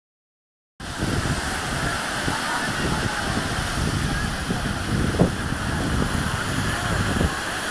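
Steady wash of small waves breaking on a sandy beach, with wind buffeting the phone's microphone and faint voices of beachgoers; it starts about a second in.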